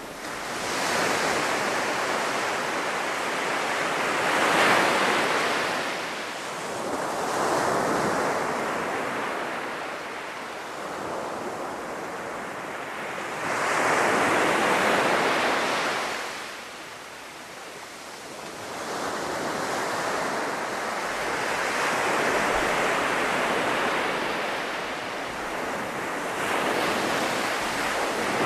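Sea surf breaking on a sandy beach, swelling and fading in several long surges a few seconds apart as each wave comes in.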